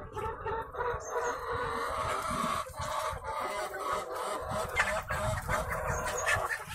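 A flock of native country hens (nati koli) clucking together, a steady chorus of many overlapping clucks.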